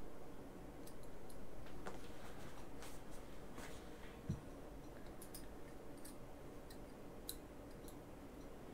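Scattered light clicks and taps of small tools and parts being handled on a workbench, with a soft knock about four seconds in.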